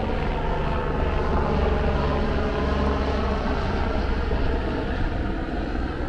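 Helicopter flying over, a steady engine and rotor noise that swells a little in the first half.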